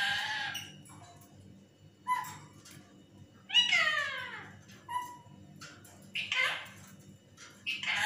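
Lutino (yellow) Indian ringneck parakeet calling in a series of short pitched calls, the loudest a long call that falls in pitch about halfway through.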